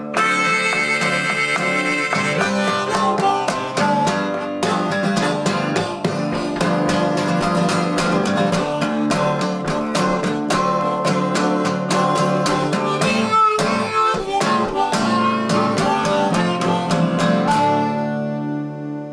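Fingerpicked acoustic guitar and harmonica playing together. Near the end the picking stops and the last notes ring out.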